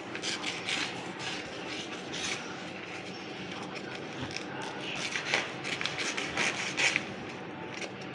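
Freshly sharpened kitchen knife slicing through a strip of paper packaging, with the paper rustling and crinkling in the hands, in several short bursts, the loudest between about five and seven seconds in. A steady low hum sits underneath.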